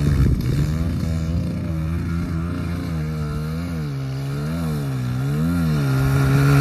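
Small Kawasaki 140 dirt bike's four-stroke engine running at a distance, its pitch falling and rising about once a second as the throttle is worked, growing louder near the end.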